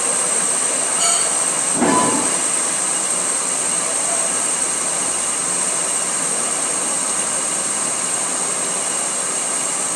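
Metal lathe turning a steel shaft, the tool cutting under flood coolant: a steady mechanical noise with a continuous high whine, and a brief louder surge about two seconds in.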